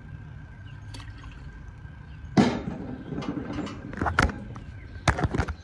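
Phone microphone handling noise as the phone is picked up and carried: a loud rustling burst a little over two seconds in, then several sharp knocks and scrapes near the end, over a faint steady high tone.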